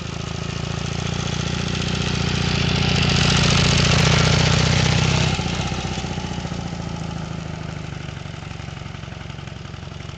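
Motorcycle engine running under way, growing louder up to about four seconds in, then dropping off and fading after about five seconds as the bike moves away.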